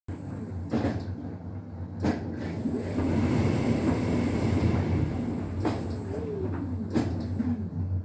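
Hotpoint tumble dryer running, its drum turning with a steady low hum and rumble, broken by four sharp knocks a second or more apart; the owner calls the dryer faulty.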